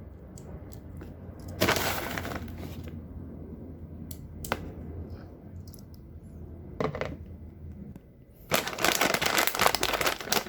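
Handling noises from airsoft gear: rustling and sharp clicks of plastic, with a longer stretch of dense rattling and crackling near the end.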